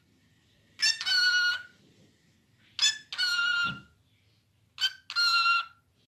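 Cockatiel calling three times, about two seconds apart: each call is a short note followed by a longer held, loud note.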